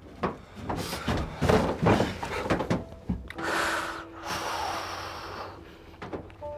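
Knocks and clothing rustle as two people come together and embrace, then a long, shaky breath at close range. Soft music comes in near the end.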